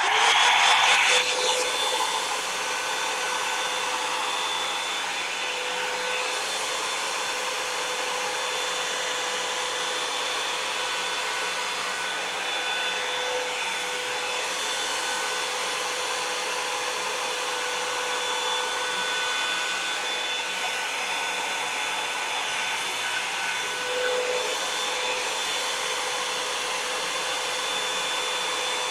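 Revlon One-Step hair dryer brush switched on at the start and blowing steadily on its cool setting, an even rush of air with a steady motor whine.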